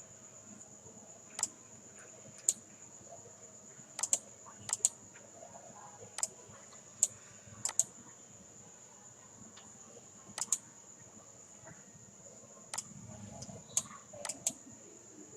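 Irregular sharp clicks of a computer mouse, about fifteen of them, several in quick pairs like double-clicks, over a steady high-pitched tone.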